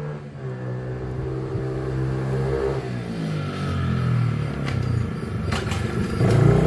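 Baja DR50 mini dirt bike engine running: a steady idle at first, then revved up and down from about three seconds in, with the loudest rev near the end.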